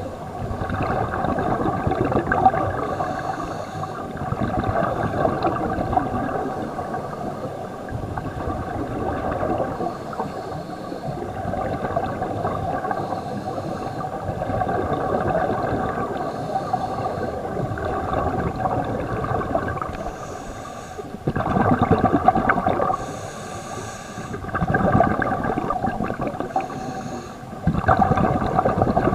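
Scuba diving heard underwater: a steady hum with the rush of regulator breathing, and three louder bursts of exhaled bubbles in the last third.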